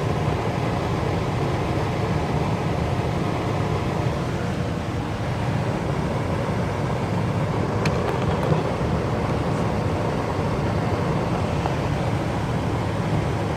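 Lennox gas furnace running with its burners lit, a steady low rumble. The burners are staying lit now that the dirty flame sensor, the cause of the no-heat fault, has been cleaned.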